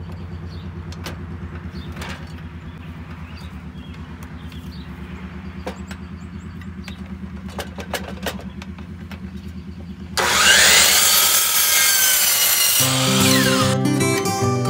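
DeWalt sliding compound miter saw starting up about ten seconds in and cutting through a cedar board for about two and a half seconds, with the blade whine sweeping in pitch. Before the cut there is a steady low hum with a few light clicks. Acoustic guitar music starts near the end.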